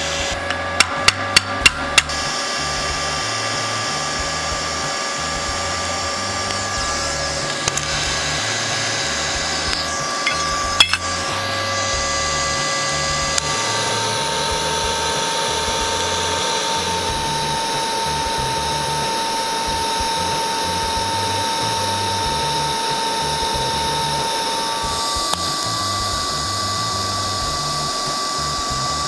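Background music with held notes that change pitch twice over a steady low pattern. A quick run of about six sharp taps sounds near the start.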